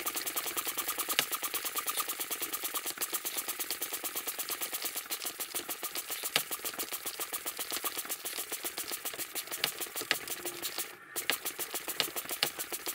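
Double-action hand pump inflating an inflatable stand-up paddle board, heard as a fast, even rattle of about ten clicks a second. This is the final stage of inflation, pumping up toward the board's 1 bar maximum.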